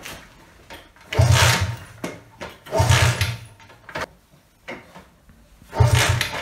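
Jawa motorcycle being kick-started three times, each kick a short burst of the engine turning over that dies away without catching: the fuel tank is empty.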